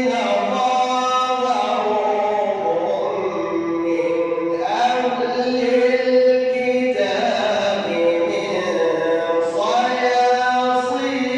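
A man's voice reciting the Quran in melodic tajweed style, with long held, gliding notes and an echo effect added to the voice so that each phrase carries on into the next.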